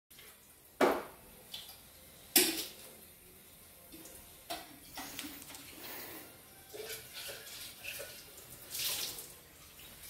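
Lakewood 12-inch table fan running, its air rushing with a faint hiss, with two sharp knocks about a second and two and a half seconds in and lighter irregular bumps after.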